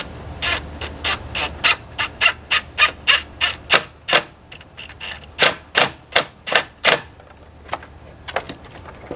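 Quick back-and-forth rasping strokes of a wire terminal-cleaning brush scrubbing a car battery terminal or cable clamp, about three strokes a second. The scrubbing pauses briefly about four seconds in, resumes, then tails off into a few lighter strokes.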